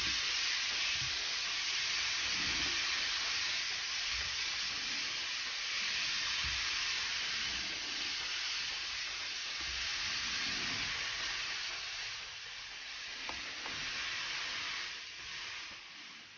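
Strips of raw ribeye steak sizzling in hot oil in a frying pan as they are laid in: a steady frying hiss with a few faint knocks, fading away near the end.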